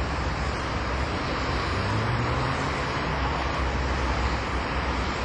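Steady outdoor background noise: a low rumble under an even hiss, like distant traffic. A low hum swells briefly about two seconds in.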